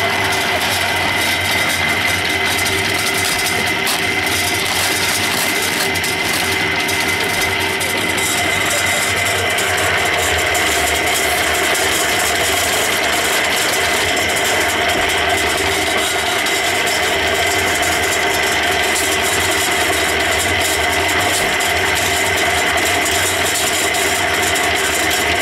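Small drum concrete mixer running steadily while mixing mortar of sand, water and cement; its motor and turning drum give an even mechanical running sound with a few constant tones.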